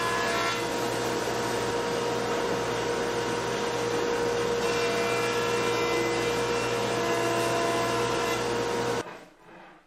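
Jointer running with its dust collection as a cherry board is passed over it: a steady machine drone with a constant hum-like tone. It cuts off abruptly about nine seconds in.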